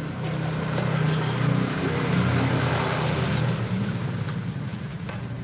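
A motor vehicle's engine running, growing louder over the first few seconds and then fading.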